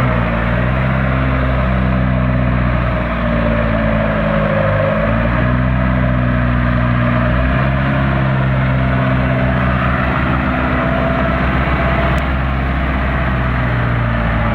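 TCM forklift's engine running steadily with a low, even note that wavers briefly a few seconds in.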